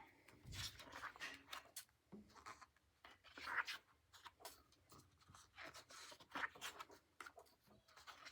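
Paper handling in a small room, with the pages of a picture book rustling and scraping in short, irregular bursts.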